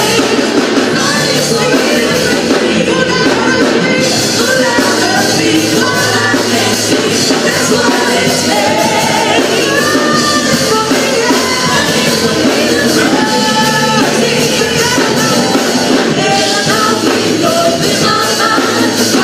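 Singing with electronic keyboard accompaniment, loud and steady throughout.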